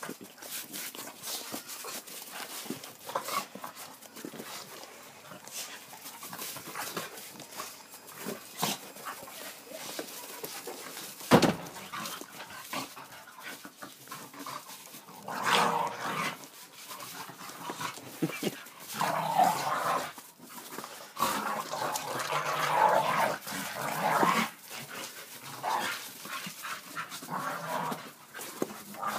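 Two Staffordshire bull terriers playing together, making short vocal noises in repeated bursts through the second half, over scattered clicks and one sharp knock about eleven seconds in.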